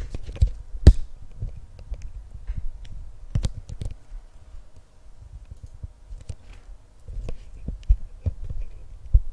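Irregular taps, clicks and dull thumps of sports card boxes being handled and opened on a table, with the loudest knocks about a second in and at about three and a half seconds.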